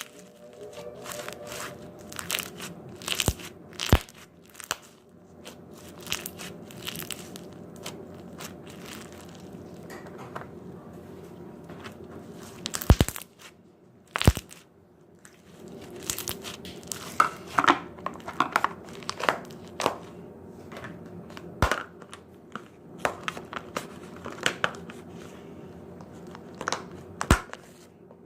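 Slime with foam beads worked by hand, giving irregular crunching and crackling pops with a short lull midway.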